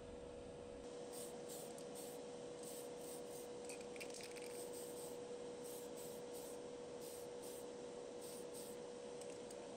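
Steady hum of a hobby paint spray booth's extraction fan with a constant mid-pitched tone. From about a second in, it is overlaid by short, irregular bursts of hiss.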